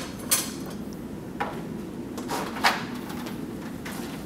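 A few separate knocks and clunks as a long enclosed conductor bar is picked up and handled, the sharpest about two-thirds through, over a steady low hum.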